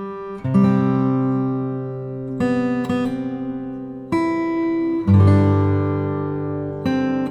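Background music: acoustic guitar strumming chords that change every second or two.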